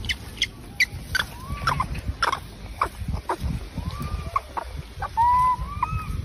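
Animal calls: a scatter of short sharp clicks and chips, then a few short arched chirping calls in the second half.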